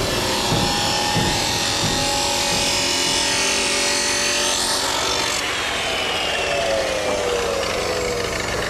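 Abrasive cut-off saw (chop saw) cutting metal: a steady high grinding hiss over the motor's whine. About five and a half seconds in the cutting stops, and the motor winds down in a falling whine.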